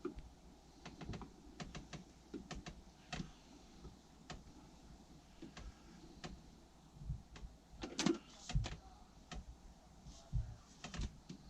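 Scattered light clicks and taps at an irregular pace, with a few soft low thumps about two-thirds of the way in and near the end, as of tools and materials being handled.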